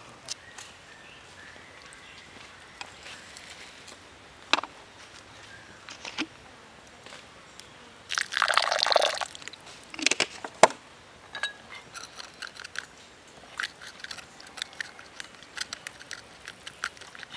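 Water poured into a stone mortar of chopped green onions for about a second, partway through. After it come a couple of sharp knocks, then light, quick clicking as wooden sticks stir the liquid against the stone.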